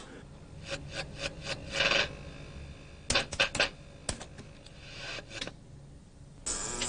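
Buttons of a video poker slot machine clicking as they are pressed: scattered sharp clicks, with a quick run of them about three seconds in. A steady hiss starts near the end.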